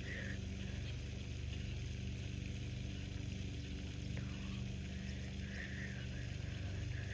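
A steady low engine-like hum runs throughout, with a few brief higher chirps near the end.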